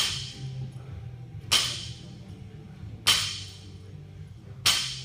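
Loaded barbell, a 45-lb bar with 35-lb plates (115 lb), touching down on the rubber floor at the bottom of each deadlift rep. There are four sharp clanks about a second and a half apart, each with a brief metallic ring.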